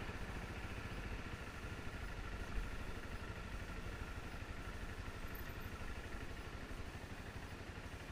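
A Honda trail bike's single-cylinder engine running at low speed with a rapid, even putter as the bike rolls slowly along a dirt track, easing off toward the end. There is a single low knock about two and a half seconds in.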